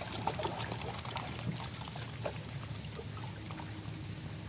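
Pond water gently sloshing and trickling around a man standing waist-deep, with small splashes as he handles a large fish at the surface.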